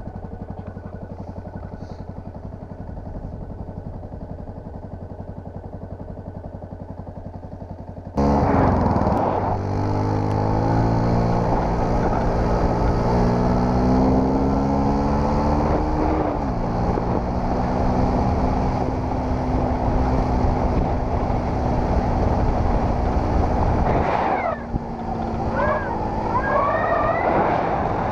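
Yamaha WRX supermoto motorcycle's single-cylinder engine running at low revs for about eight seconds, then suddenly louder as the bike pulls away, its note rising as it accelerates and then holding steady. Near the end the revs drop briefly and climb again.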